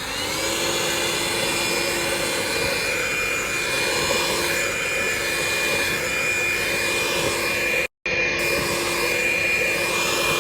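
Cordless handheld vacuum cleaner running steadily with a high motor whine over a rushing air noise, having just spun up. The sound drops out for a split second about eight seconds in.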